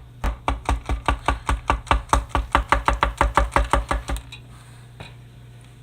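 Rapid, even knocking, about five taps a second for some four seconds, then it stops: a cardboard firework mortar shell being tapped against a hard surface to shake the firework stars out of it.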